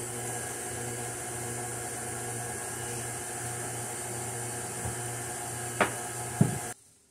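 KitchenAid stand mixer running steadily, beating cake batter. There are two sharp clicks near the end, and then the motor cuts off abruptly.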